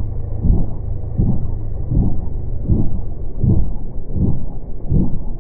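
Helicopter with a two-bladed main rotor hovering low: a loud, steady low rumble of rotor and engine that swells rhythmically about every three-quarters of a second.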